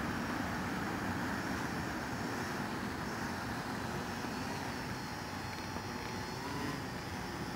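MikroKopter quadcopter's four electric motors and propellers running as it lifts off the grass and hovers low: a steady rushing hum with a faint whine through the middle.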